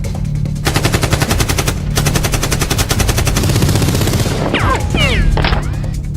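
Machine-gun sound effect: rapid automatic fire at about ten shots a second, starting under a second in and lasting about three and a half seconds, over a steady low music bed. It is followed by a few falling, whistle-like glides.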